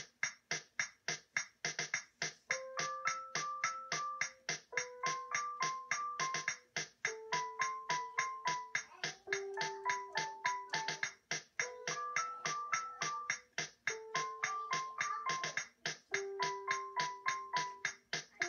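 A simple electronic keyboard tune: a short melody of held notes that repeats in phrases, over a steady beat of about four ticks a second.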